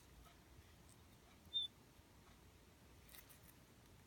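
Near silence: room tone, with one brief high-pitched chirp about a second and a half in and a few faint clicks a little later.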